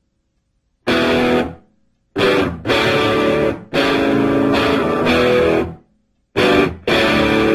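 Background rock music led by electric guitar, played in stop-start bursts of chords that cut off abruptly, with about half a second of silence between them, the first after nearly a second.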